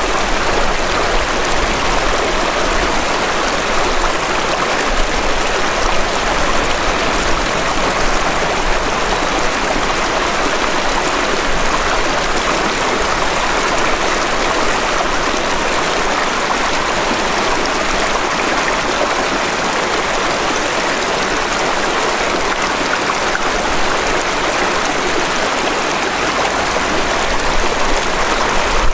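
Small stream rushing and splashing over rocks, a steady, unbroken sound of running water.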